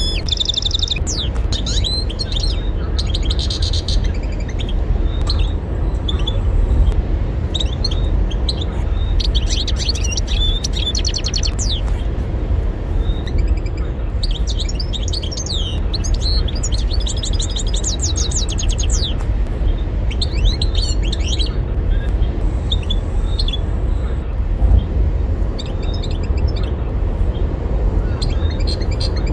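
European goldfinch singing: bouts of fast twittering trills and chirps, each a few seconds long, broken by short pauses. A steady low rumble runs underneath.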